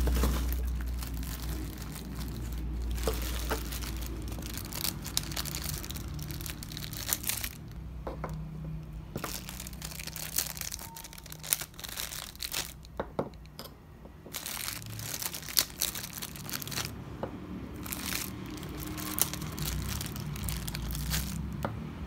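Small clear zip-lock plastic bags crinkling and rustling as they are opened and handled, with irregular sharp clicks throughout and a low rumble in the first couple of seconds.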